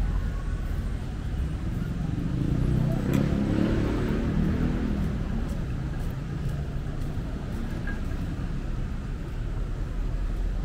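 Street ambience with a steady low rumble of traffic; a motorcycle passes close by, its engine swelling louder about two to five seconds in and then fading.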